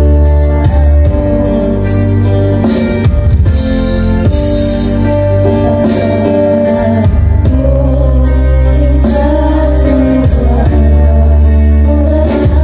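Two boys singing a duo into handheld microphones over a loud amplified backing track with heavy bass and a steady beat.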